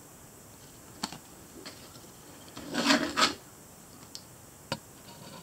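Paper and cardboard packaging cards handled by hand: a few light clicks, and two quick rubbing scrapes about three seconds in.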